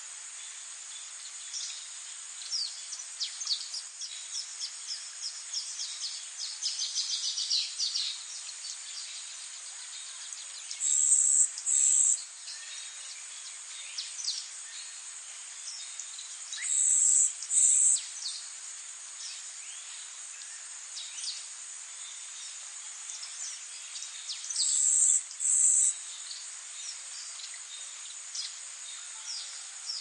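Steady high-pitched insect drone with three loud paired bursts of insect calling, and many short, high, downward-sweeping bird chirps, thickest during the first eight seconds or so.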